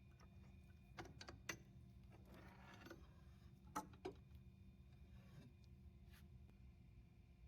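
Faint clicks and clinks of hand tools on metal as the splitter's motor is taken apart: a few sharp ticks about a second in, a short scrape between two and three seconds, then two clinks close together about four seconds in, over a steady low hum.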